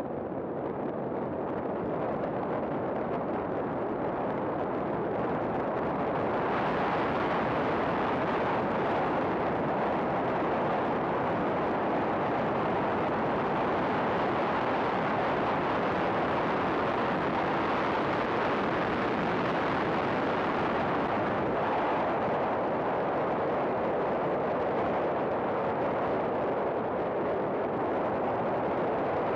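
Wind on the microphone of a camera mounted outside a race car at track speed, a dense, steady noise with the car's running noise beneath it. It grows louder and brighter about six seconds in as the car speeds up.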